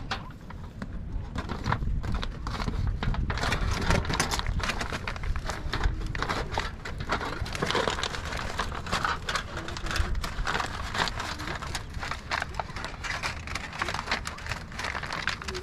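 Aluminium foil being folded and pressed by hand, crinkling and crackling without pause.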